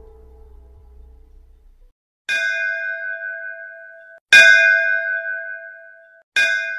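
Soft ambient music fading out, then a bell struck three times about two seconds apart, each stroke ringing and cut short just before the next; the second stroke is the loudest.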